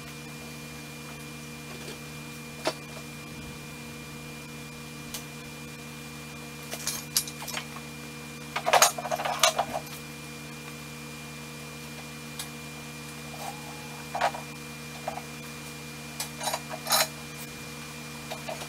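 Scattered metallic clanks and rattles of steel parts being handled, over a steady hum. The loudest clatter comes about nine seconds in, with more near the end.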